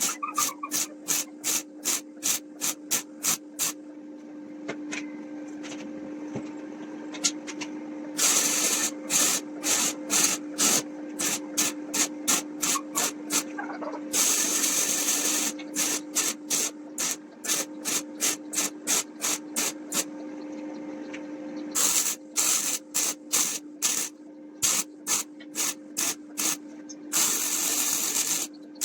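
Rhythmic back-and-forth scraping strokes on wood, about three to four a second, in runs broken by several stretches of continuous rasping, over a steady hum.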